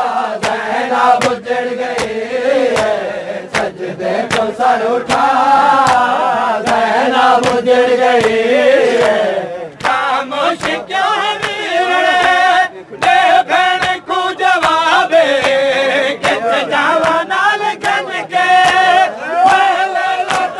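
A crowd of men chanting a Punjabi noha lament in unison, with sharp slaps of open hands beating on bare chests (matam) cutting through the singing.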